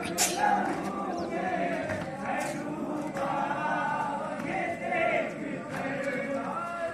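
Group of men chanting a nauha, a Shia mourning lament, together in unison, with a sharp hit just after the start.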